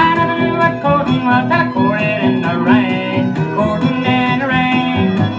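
Country string-band instrumental with guitar and fiddle, the fiddle sliding between notes, played from a 45 rpm Decca vinyl single on a turntable.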